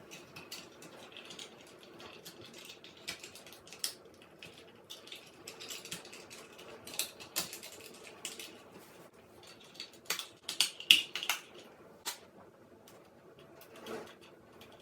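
Irregular small clicks, taps and rustles of hands handling small parts, with a denser, louder cluster of clicks about ten to eleven seconds in.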